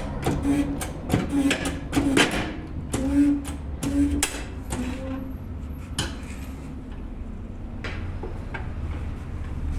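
Metal parts and tools clicking and clanking in quick succession for about six seconds, then a few separate knocks, over a low steady workshop hum.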